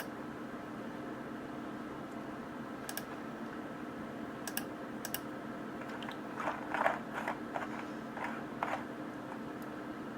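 A few sharp, isolated clicks, then a short run of keystrokes on a computer keyboard between about six and nine seconds in, over a steady hum.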